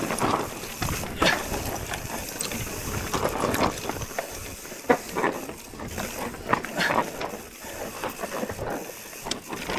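Mountain bike riding down a rough dirt trail: tyres running over the ground under a steady rush of noise, with irregular clicks and rattling from the bike as it goes over bumps.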